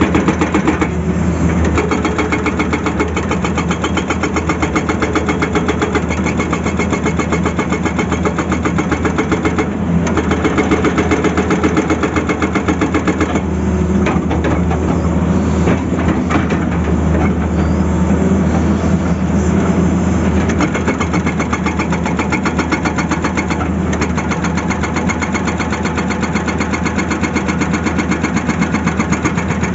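Tata Hitachi excavator's diesel engine running steadily, with a fast, even pulsing throughout.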